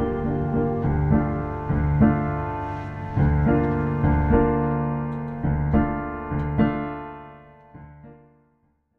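Background piano music, slow struck chords that fade out and stop about eight and a half seconds in.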